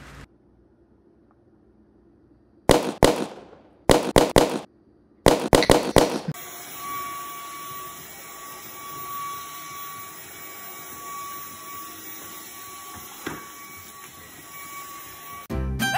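Several clusters of sharp, loud bangs or knocks, then a cordless stick vacuum running steadily with a thin, high whine. Dog barks come in just at the end.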